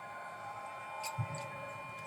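Quiet background of a televised football match played without spectators, with one short thump about a second in.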